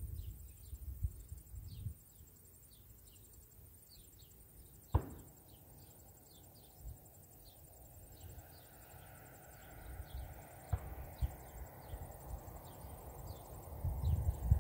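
Insects chirping steadily in dry grass, with a rapid run of short high chirps and a thin high buzz behind them. Wind buffets the microphone in the first couple of seconds and again near the end.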